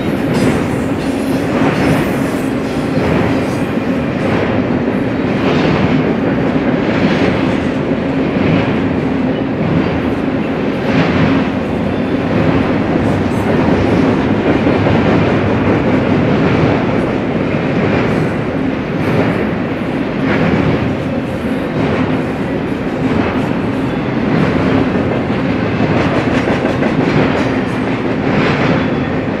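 Double-stack intermodal well cars of a freight train rolling past: a loud, steady rumble of steel wheels on rail with a steady hum underneath, and a clickety-clack of wheels over the rail joints roughly once a second.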